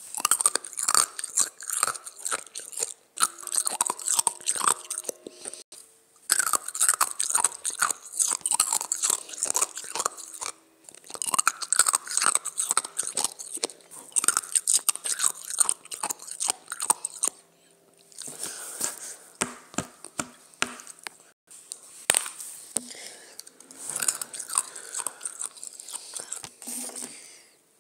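A person chewing ice close to the microphone: dense runs of sharp, rapid crunches lasting a few seconds each, with brief pauses between them.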